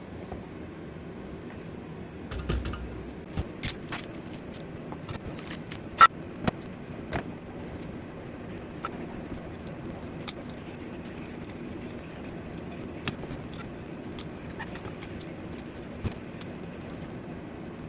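Scattered metallic clicks and knocks of hand tools and plumbing fittings being handled, the sharpest about six seconds in, over a steady low hum.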